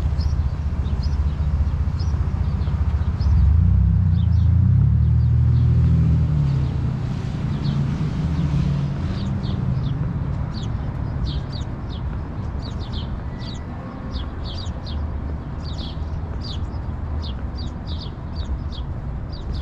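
Low rumble of city traffic, with a vehicle engine swelling and passing about four to seven seconds in. Over it, small birds chirp in quick short notes, getting busier in the second half.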